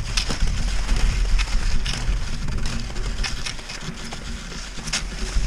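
Cross-country skis swishing and scraping over snow, with sharp crunches from pole plants now and then. A steady low rumble of wind on the camera microphone runs under it.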